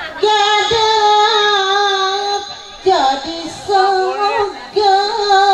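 A solo voice singing a Sundanese sawer (nyawer) chant for the bride and groom, in three long held phrases with wavering ornaments and short breaks between them.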